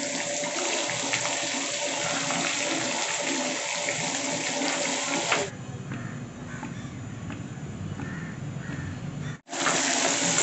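Chopped onions and curry leaves frying in hot oil in a steel kadai: a steady sizzle. About five and a half seconds in it gives way to a much quieter, duller background for about four seconds, then after a brief dropout the sizzle comes back.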